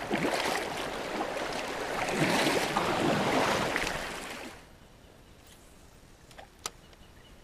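Shallow river rapids rushing over rocks, a steady wash of water that cuts off abruptly about four and a half seconds in. A quiet stretch follows, with a single sharp click near the end.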